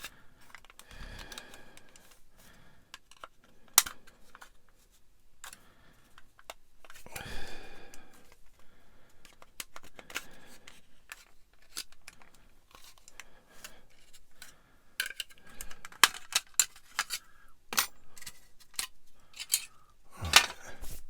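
Small hard plastic kit parts and hand tools clicking and tapping against each other and the bench, many sharp clicks with a couple of brief scrapes, the clicks coming thicker over the last few seconds.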